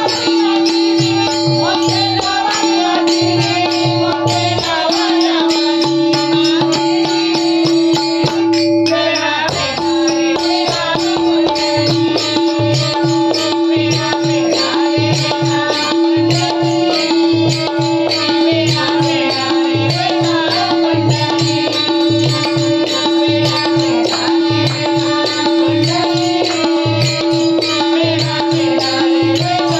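Marathi devotional bhajan music: a steady held drone note under a gliding melody line, driven by a regular hand-drum rhythm and jingling metal percussion.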